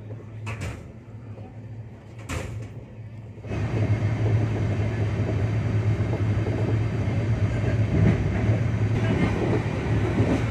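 A passenger train running, heard from on board: a steady rumble of wheels on the track with a low hum. It is fairly quiet at first, with a couple of clicks, then becomes much louder and denser about three and a half seconds in.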